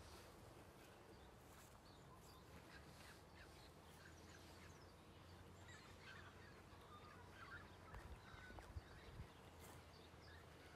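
Near silence: faint outdoor ambience with distant birds calling now and then.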